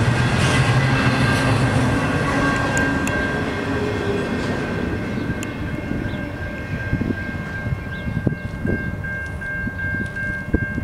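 The tail end of a double-stack intermodal freight train rolling past and moving away, its wheel rumble on the rails fading over the first few seconds. A thin steady high tone lingers. Scattered low thumps come in the second half.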